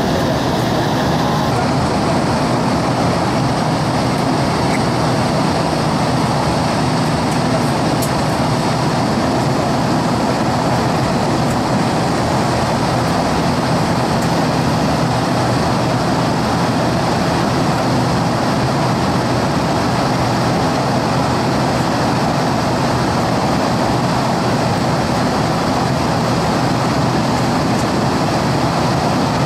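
Cabin noise of an airliner in flight: a steady rush of engine and airflow noise with a low drone underneath, unchanging throughout.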